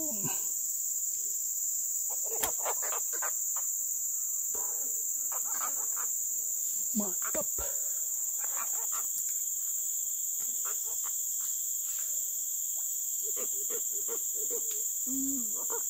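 Steady high-pitched chorus of forest insects, a continuous shrill drone, with a few soft clicks and knocks scattered through it.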